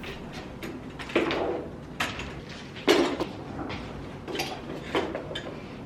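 A few light knocks and clatters at irregular intervals, the loudest about three seconds in, over a steady low room background.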